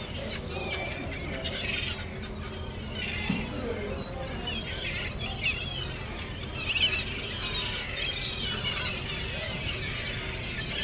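A flock of gulls calling continually, many overlapping high cries that rise and fall in pitch, over a steady low rumble.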